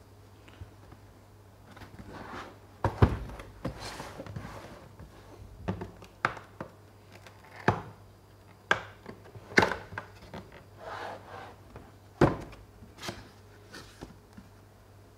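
A cardboard product box being opened and handled by hand: irregular sharp knocks and taps, with rustling and scraping of cardboard and packing between them.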